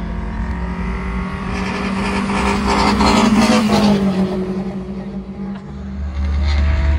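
Drag-racing cars passing at full throttle, loudest about three to four seconds in and then fading away. A steady low drone comes in near the end.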